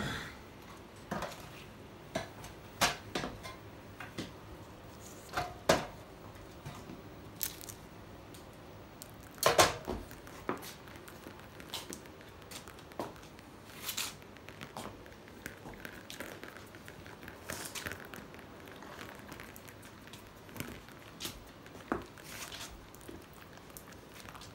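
Scattered small knocks, clicks and rustles of handling, irregularly spaced, with a louder cluster about ten seconds in, as paint is squeezed and dripped from a plastic bottle onto a canvas.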